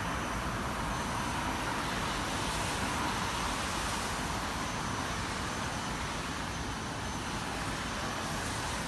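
Steady outdoor background noise, an even wash of sound with no distinct events, of the kind made by distant road traffic.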